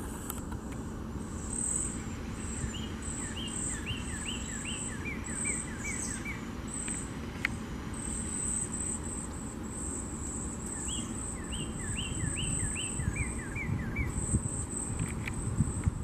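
Northern cardinal singing two phrases a few seconds apart, each a quick series of down-slurred whistles that steps from higher notes to lower ones. A high, pulsing insect trill runs underneath, over a low background rumble.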